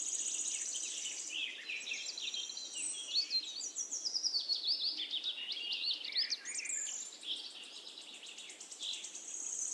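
A chorus of songbirds chirping and singing, many overlapping calls with quick falling whistles, thinning out a little after about seven seconds.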